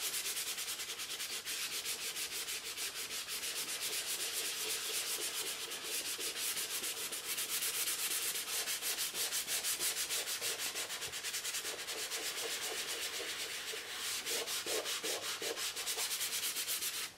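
Fingers rubbing soft pastel into drawing paper, smudging it in with quick, steady back-and-forth strokes: a continuous dry rasping.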